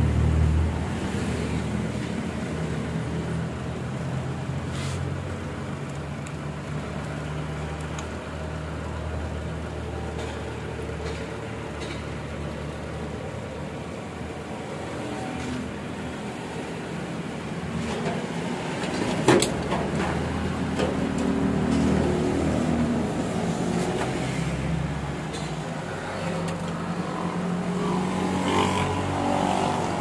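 Low, steady engine rumble from a motor vehicle, swelling and easing, with one sharp click about two-thirds of the way through.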